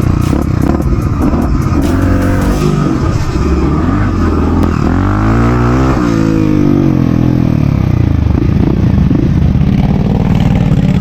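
Trail motorcycle engine running and revving, its pitch climbing and dropping several times, with a rapid clatter in the first two or three seconds.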